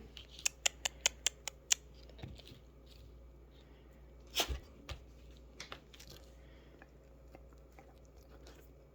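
Puppy gnawing at a bone: a quick run of sharp clicks from its teeth on the bone in the first two seconds, then a couple of louder knocks about four and a half seconds in.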